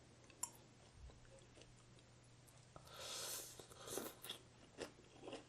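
Faint chewing and crunching of food with a few soft mouth clicks. A louder noisy crunch comes a little under three seconds in and lasts about a second, followed by a few sharper bites.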